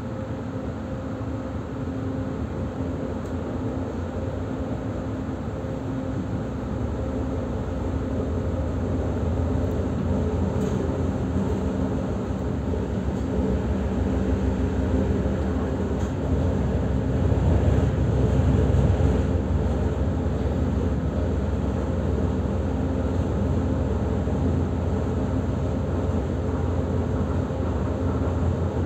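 Ride noise inside an EG2Tv Ivolga electric train under way: a steady rumble of the running gear with a constant hum. It grows louder over the first twenty or so seconds, then holds steady.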